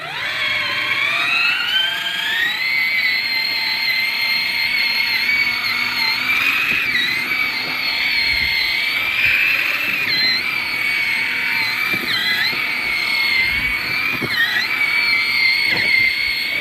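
A vehicle's motor running flat out in deep snow. It whines up over the first two seconds, then holds a steady high whine with a few brief dips as it labours with the wheels spinning: the snow is too deep.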